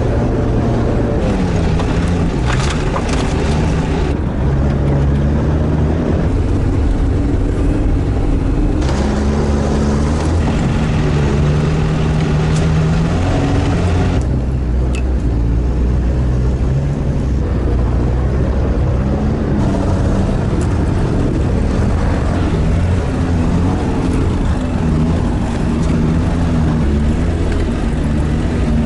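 SHERP all-terrain vehicle's Kubota four-cylinder diesel running steadily as the vehicle drives, its engine note rising and falling with the throttle, with a few short knocks a few seconds in.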